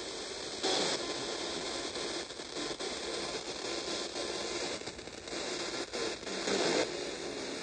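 FM radio static from a TEF6686 tuner on a weak or empty frequency: a steady hiss with crackle that shifts abruptly several times.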